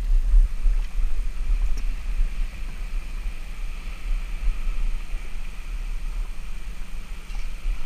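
Wind buffeting the microphone: a low, uneven rumble with a faint steady hiss above it.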